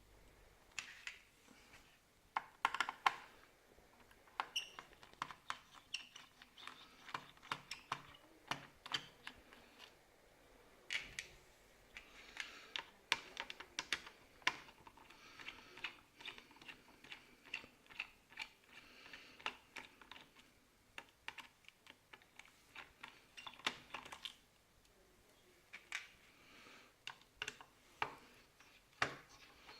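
Irregular small clicks, taps and short scrapes of hands, a screwdriver and plastic parts being handled while an Asus S56C laptop is taken apart to swap its hard drive.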